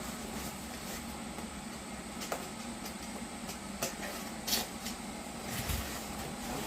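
A package being handled and opened: a few scattered rustles and clicks over a steady background hum.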